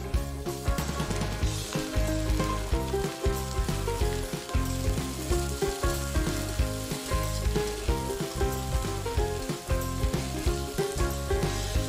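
Raw prawns sizzling in hot oil in a metal wok as they are tipped in and then stirred with a spatula.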